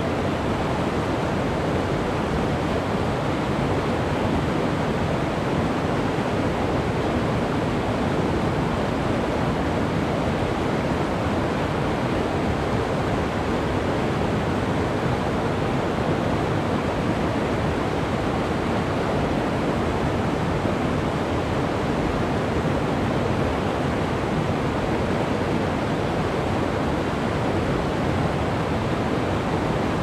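Tenaya Creek flowing, a steady, full rush of water that holds an even level throughout.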